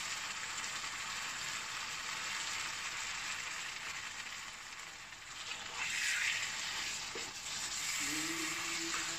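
Curry gravy sizzling in a non-stick frying pan as pieces of fried chicken are added and turned in it. The hiss swells briefly about six seconds in.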